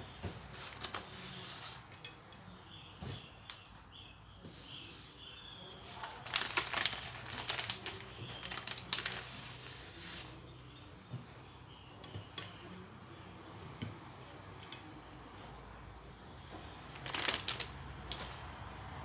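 Plastic snack packet crinkling in irregular bursts as fried fish strips are pulled out of it, with a few light clicks in between.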